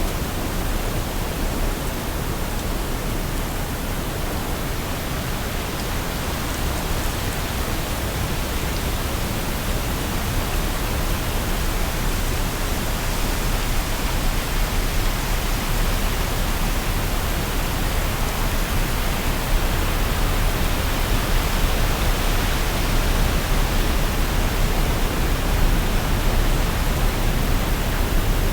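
Waterfall: falling water making a steady, even rush, a little louder in the second half.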